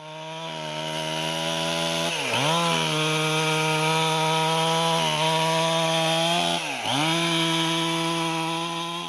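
Two-stroke chainsaw at high revs, cutting into a felled log, its engine note steady. Twice, about two seconds in and again near seven seconds, the pitch dips sharply and climbs back as the chain loads up in the wood.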